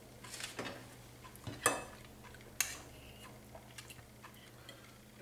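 A metal spoon scraping and clinking as shepherd's pie is scooped out of a baked sugar pumpkin: a few soft scrapes, then two sharp clinks about a second apart, followed by faint light taps.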